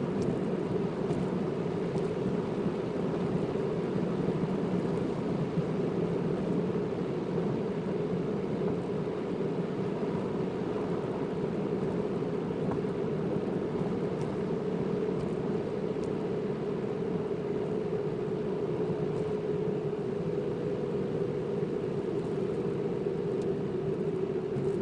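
Car being driven at a steady pace, with a constant engine and tyre drone heard from inside the cabin.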